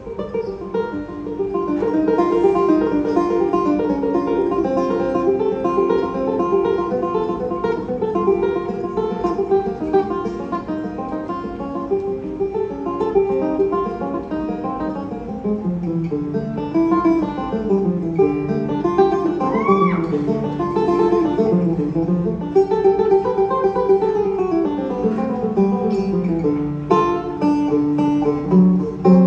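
Live band music led by a picked banjo, with a rhythmic accompaniment. In the second half a low bass line slides up and down in pitch.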